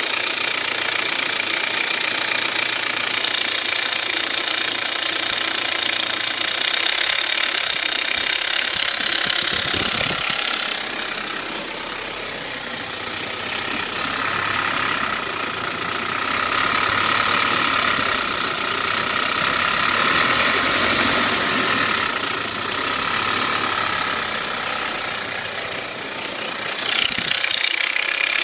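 Engine running steadily, heard from above and from underneath; its tone changes clearly about eleven seconds in and again near the end.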